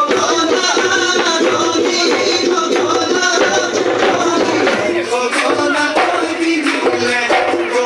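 Bihu song music: a singing voice over a steady percussion beat, accompanying a Bihu dance.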